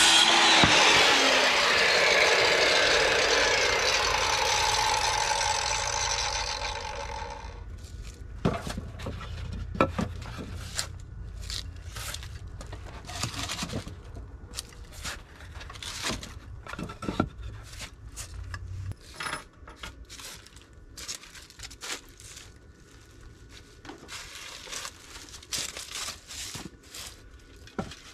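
Hitachi circular saw cutting through a wooden board, the noise fading over about the first seven seconds as the cut finishes and the blade winds down. After that come scattered wooden knocks and clatter as the cut boards are handled and laid down.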